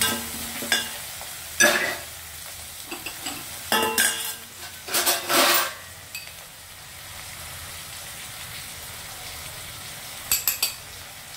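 Sliced onions and tomatoes sizzling in oil in a stainless steel pot, with a steel spoon stirring and scraping the pot in several loud strokes over the first six seconds. Near the end a spoon clinks a few times as spice powders go in.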